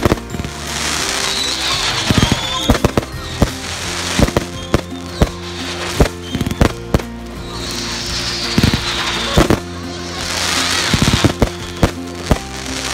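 Aerial fireworks bursting overhead: a run of sharp bangs, some in quick clusters, with bursts of crackling sparks. Music with sustained notes plays steadily underneath.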